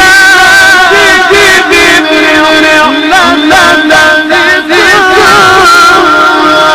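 A man's voice in melodic Quran recitation (tajwid), holding long, wavering notes with rapid turns and ornaments rather than clear words.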